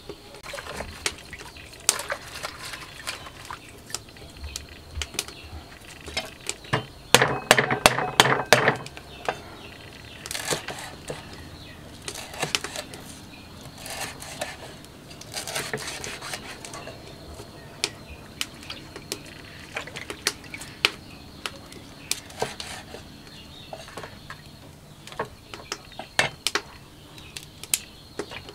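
Steel cleaver chopping fresh lemongrass stalks on a round wooden chopping block: sharp knocks at uneven intervals, with a fast, loud run of chops about a quarter of the way through.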